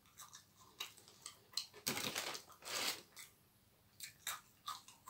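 Person chewing crispy French fries, an irregular run of crunches with the strongest about two and three seconds in.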